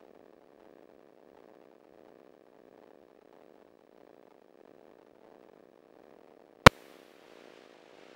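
Light aircraft engine running steadily, heard faintly through the cockpit headset intercom as a low, even hum. A single sharp click comes about two-thirds of the way through, followed by a brief hiss that cuts off.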